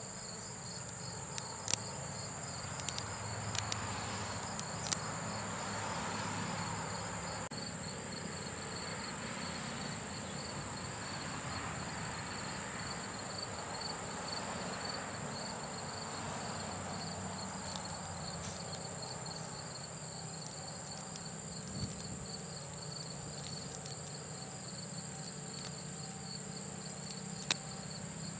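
Steady high-pitched insect chirping, with soft rustling and a few sharp clicks from hands pulling the rubber strands out of a cut-open bungee cord. The clicks come several times in the first five seconds and once near the end.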